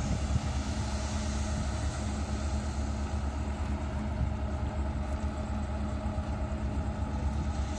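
Komatsu PC270 excavator's diesel engine running steadily.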